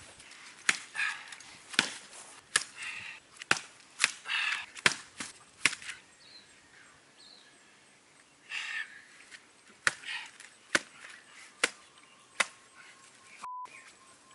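A coconut still in its fibrous husk struck again and again against the ground, a string of sharp knocks roughly one a second, with a lull of a few seconds midway.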